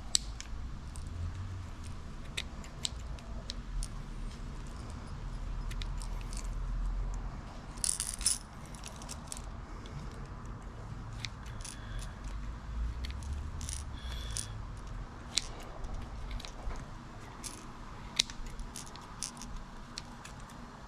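Irregular small metal clinks and sharp clicks as a crankbait and its treble hooks are handled and scissors snip away tangled debris, over low rumbling handling noise. There is a louder cluster of clicks about eight seconds in.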